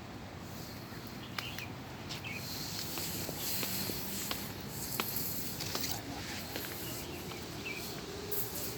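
Footsteps on a hillside path, with insects buzzing in a high hiss that swells and fades and a few short bird chirps.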